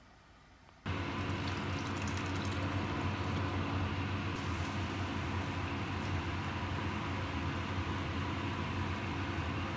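A steady machine hum with fan-like rushing noise switches on abruptly about a second in and then runs evenly, like a kitchen appliance's fan motor.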